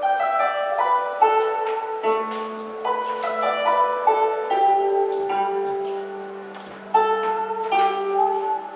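Music on a plucked string instrument: a slow melody of single notes that ring and fade over held lower notes, with a fresh sharp note about seven seconds in.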